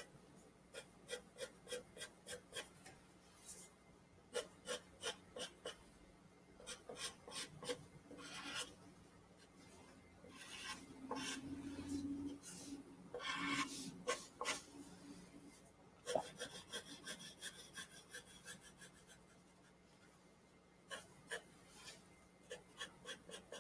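Graphite pencil hatching and shading on drawing paper: runs of short, faint scratchy strokes, several a second, with pauses and two longer shading passes near the middle.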